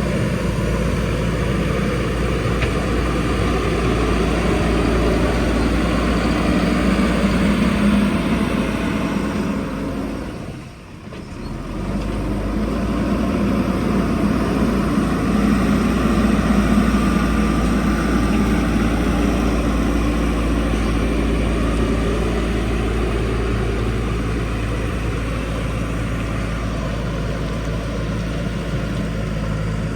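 Backhoe loader's diesel engine running, rising and falling in pitch as the machine works. The sound dips away briefly about eleven seconds in, then picks up again.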